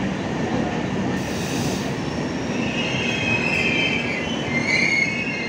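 Train of LHB passenger coaches rolling slowly through a station, with a steady rumble of wheels on the rails. From about halfway through, the wheels set up a high-pitched squeal on top of the rumble, as the train slows on arrival.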